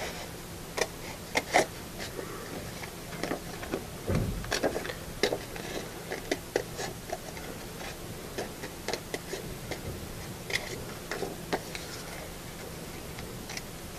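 Scissors cutting paper in short snips, an irregular series of small clicks, with a low bump about four seconds in.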